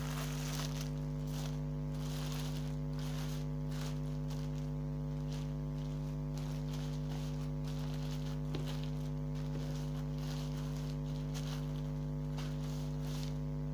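A steady electrical hum made of several low tones, with faint, irregular crinkling of a plastic bag being handled as slime is pulled out of it.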